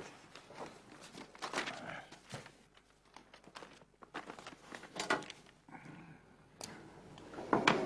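Intermittent soft rustles and light knocks of papers and a chair being handled at a desk in a small room, the loudest near the end.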